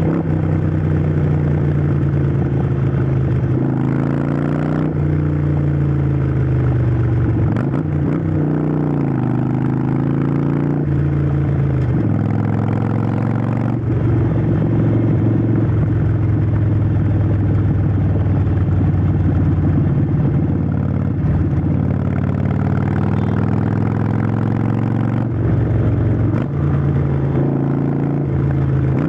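Harley-Davidson Forty-Eight's air-cooled 1200 cc V-twin running through a Vance & Hines aftermarket exhaust while the bike is ridden. The engine note climbs and drops several times as the throttle opens and closes, with steadier cruising stretches in between.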